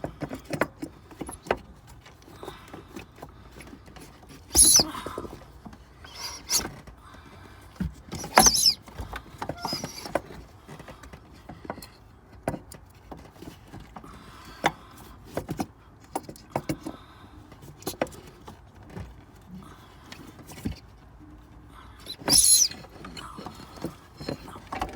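Scattered clicks, scrapes and knocks of hands and tools working a new air bag into a truck seat's suspension, with three short, sharper sounds about five and eight seconds in and near the end.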